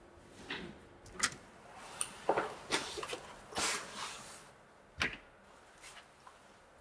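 Scattered clicks and knocks of household handling: a drawer being rummaged, then a wooden front door's handle and latch. A sharp latch click with a light thud comes about five seconds in.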